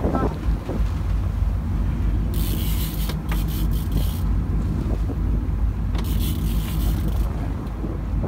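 A boat's engine runs with a steady low rumble under wind buffeting the microphone. A loud hiss of wind or rushing water comes in twice, about two seconds in and again about six seconds in.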